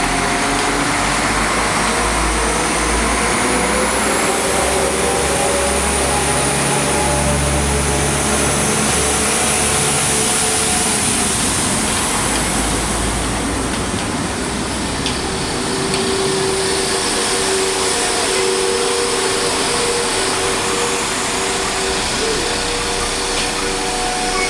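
A vehicle running loudly and steadily, with a high whine that rises over roughly the first ten seconds.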